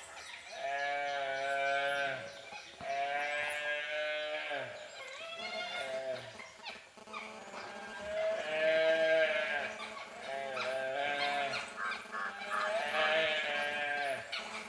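Gaur calf bleating in distress, a string of drawn-out calls a second or two long, one after another, as it is bitten by attacking dhole.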